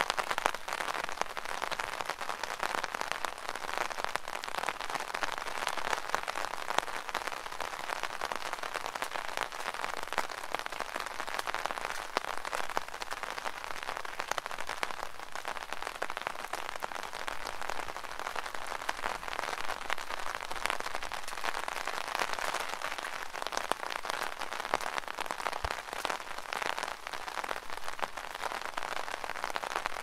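Rain pattering steadily and densely on an umbrella.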